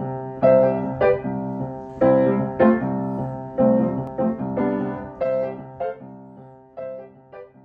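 Solo piano intro music: single notes and chords struck one to two times a second, each ringing and dying away, the whole passage slowly fading out toward the end.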